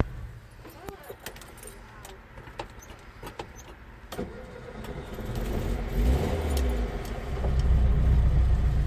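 Keys jangle and click, then a Volkswagen Type 2 bus engine starts about four seconds in and settles into a steady low running sound that grows louder near the end.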